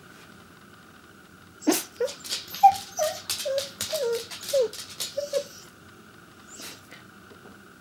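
Pembroke Welsh Corgi whining in a quick string of about eight short yips, most dropping in pitch, starting a couple of seconds in and stopping after a few seconds: attention-seeking 'talking'.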